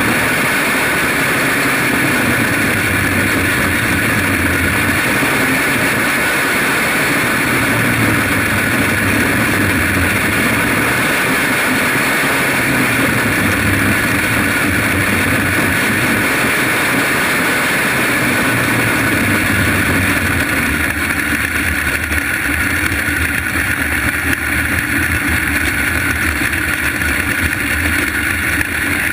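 Small race car's engine running steadily at racing speed, heard from a camera mounted on the car.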